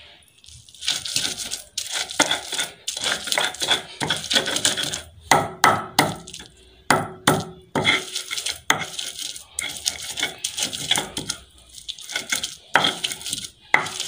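Stone pestle (lohoro) grinding garlic on a flat silauta grinding stone: an uneven run of gritty stone-on-stone scraping strokes through the paste, a couple of strokes a second.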